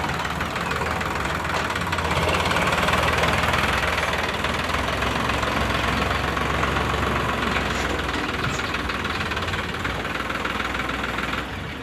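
Heavy diesel machinery engine running steadily with a low hum and a rattly clatter, a little louder a few seconds in and falling away near the end.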